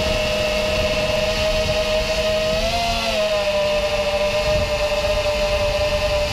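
5-inch FPV quadcopter's brushless 2207 2300KV motors and tri-blade propellers whining steadily in flight, rising briefly in pitch and falling back about two and a half seconds in, over a low rumble.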